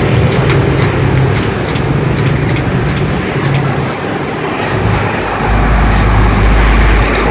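Knife chopping peeled sugarcane into short pieces, quick repeated chops about two or three a second for the first few seconds, over steady street traffic. A vehicle engine runs close by, loud and low, in the last two seconds.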